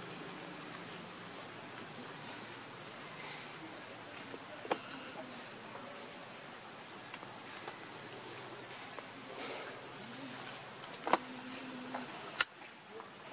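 Insects droning steadily at one high pitch, with a few sharp clicks, two of them close together near the end.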